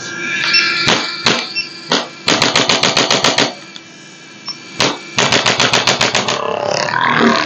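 A few single sharp cracks, then two quick runs of rapid clicks at about ten a second, each lasting about a second.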